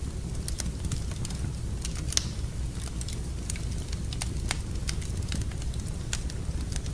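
Wood fire burning in a fireplace, crackling with sharp, irregular pops over a low steady rumble; one pop about two seconds in is louder than the rest.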